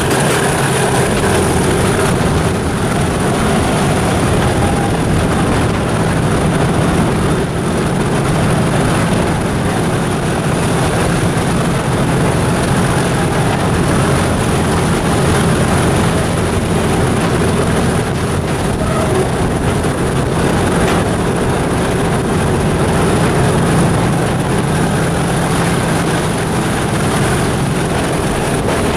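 Class 37 diesel locomotive 37418's English Electric V12 engine running steadily as it hauls the train, mixed with wheel and rail noise, heard from a carriage window and echoing inside a tunnel.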